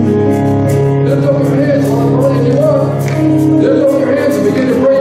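Live worship music from a church band: long held keyboard chords with a voice singing a slow, wavering line over them.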